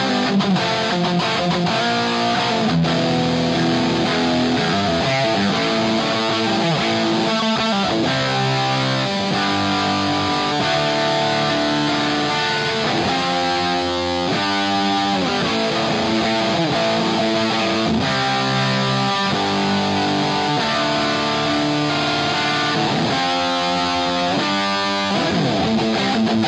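Electric guitar played through a 15-watt Rola Balch 15 amplifier head, chords strummed and left to ring, changing every second or two.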